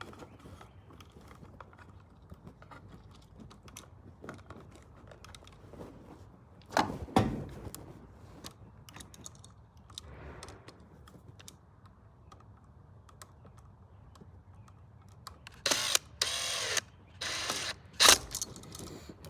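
Hand work on an electrical outlet and its hardware: scattered small clicks and knocks, with a louder knock about seven seconds in and a few louder scraping rustles near the end.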